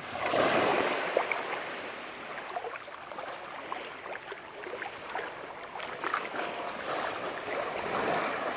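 Sea water washing and splashing, with a surge about half a second in and many small crackling splashes.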